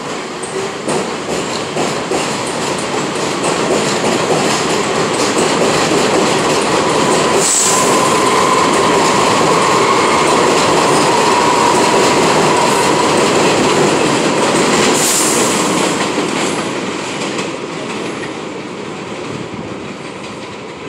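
New York City Subway 6 train passing on the elevated track, its wheels clattering over the rails. The sound builds to its loudest through the middle, with a steady high whine, then fades as the train moves off.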